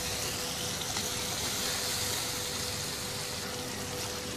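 Chicken karahi simmering in its oily masala gravy in a wok, a steady even sizzle with a faint steady hum underneath.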